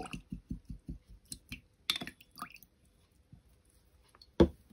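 A paintbrush being swished and knocked against the inside of a small glass water jar while rinsing: a quick run of low knocks, about five a second, then a few scattered clicks and one sharper knock near the end.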